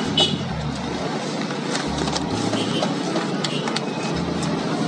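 Steady street traffic with motorbikes going past, and paper crinkling now and then as a roti john is wrapped in baking paper.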